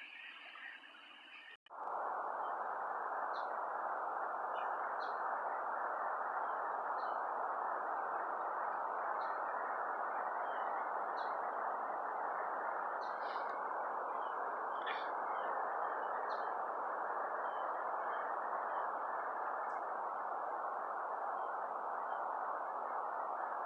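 Steady rushing noise with short, high bird chirps every second or two over it. It begins abruptly after a brief dropout about a second and a half in.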